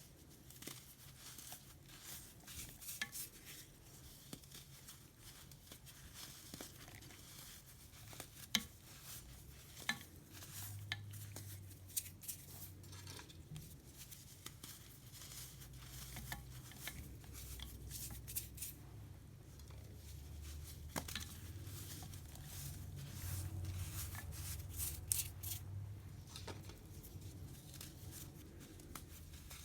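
Chunks of baking soda fizzing and crackling in vinegar, with scattered sharp clicks and taps against the container.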